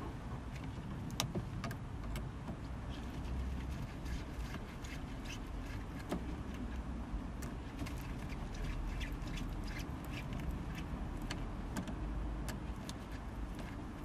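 Scattered small clicks and ticks of hand work on the gear-lever wiring and trim in a van's centre console, over a steady low rumble.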